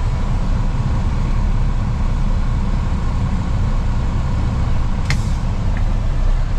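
Truck engine running steadily with a deep rumble of engine and road noise, and one short click about five seconds in.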